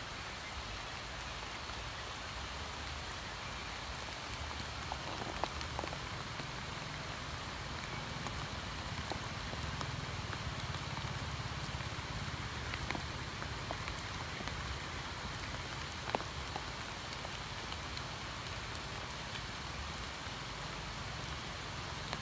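Steady rain falling on a pond, an even hiss of rain on the water's surface with scattered individual drop splats. A few louder drops stand out, one about five seconds in and one near sixteen seconds.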